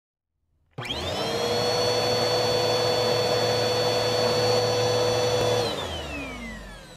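Vacuum motor switched on, spinning up within a fraction of a second to a steady high whine. After about five seconds it is switched off and winds down, its pitch falling.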